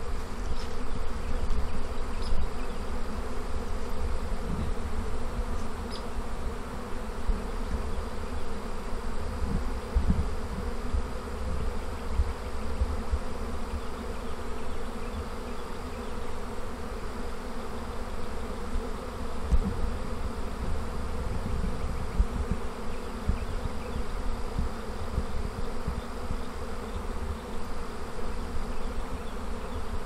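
Swarm of honey bees in flight: the dense, steady buzzing hum of thousands of bees circling as the swarm gathers into a cluster on a tree limb.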